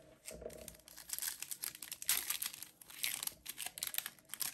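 Foil Yu-Gi-Oh Maximum Gold El Dorado booster pack being crinkled and torn open by hand: a dense run of crackling crinkles and rips that starts about a second in.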